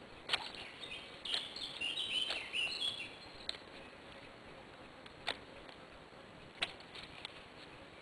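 Small side twigs snapping off a green-wood branch as they are stripped by hand from underneath: several sharp cracks a second or so apart, with a bird chirping briefly about a second in.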